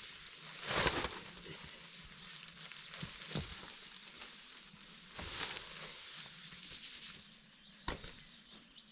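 Amok Skjold tarp fabric rustling and flapping in a few brief rushes as it is lifted and spread into position, with a sharp knock near the end.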